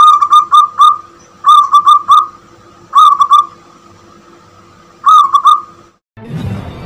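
Young zebra dove (perkutut) cooing: four short phrases of quick ringing coos, three or four notes each, spaced one to two seconds apart. The bird was caught less than a month ago and is already calling. Music comes in near the end.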